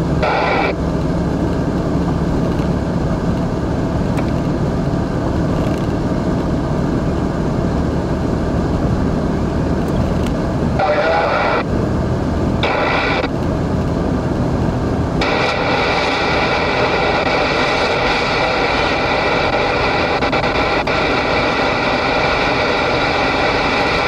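Steady drone of a car driving at highway speed, heard from inside the cabin: engine and tyre noise. A brighter, hissier road sound comes in briefly twice near the middle and stays for the last third.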